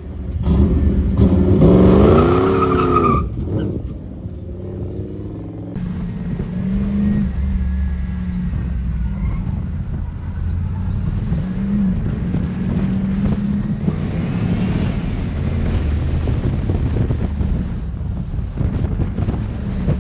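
Car engine run hard through an autocross course. It is loudest for the first few seconds, its pitch rising and falling as the car accelerates and lifts. After that it runs as a steady drone with brief rises in revs.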